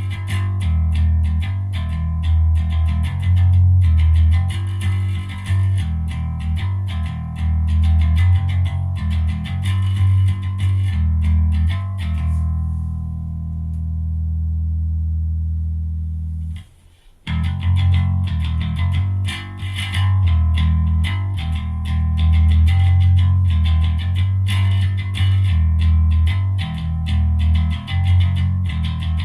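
Electric bass guitar played through an Ampeg SVT clone bass amplifier: a run of picked low notes, then about halfway through a note held and left to ring for about four seconds, a short break, and the playing starts again.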